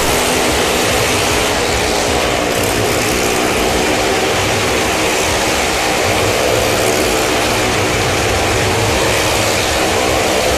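Loud, steady din of running machinery, with a low engine-like drone under a dense noisy wash that holds level throughout.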